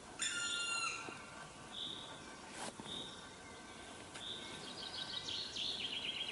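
Woodland songbirds singing: a high note repeated about once a second, a short loud call near the start, and a fast trill stepping down in pitch near the end. One sharp tap sounds a little before halfway.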